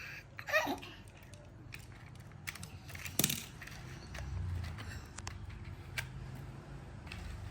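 Scattered light clicks and knocks of plastic Hot Wheels track pieces and toy cars being handled, with one sharper click a little after three seconds.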